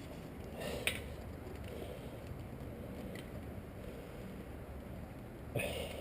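Two brief knocks of metal parts or tools being handled during an alternator install, one about a second in and a louder one near the end, with a faint click between them, over a low steady hum.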